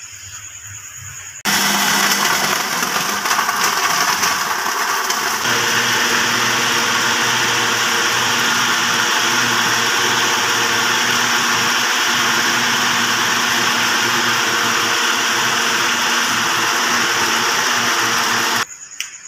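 Countertop electric blender running, blending mango chunks with milk and sugar into juice. It switches on suddenly about a second and a half in, its sound settles a few seconds later, and it cuts off abruptly near the end.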